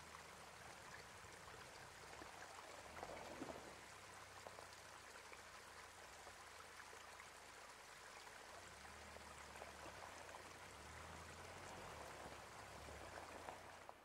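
Faint, steady rushing and trickling of a small spring meltwater stream, with a low hum that comes and goes underneath.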